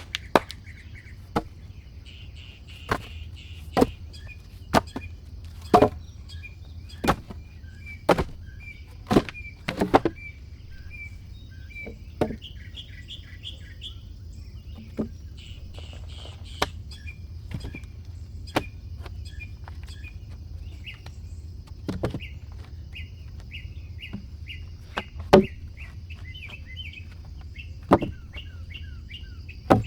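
Sharp knocks of a tool striking wood, about one a second at first and then more spaced out, over small birds chirping and twittering.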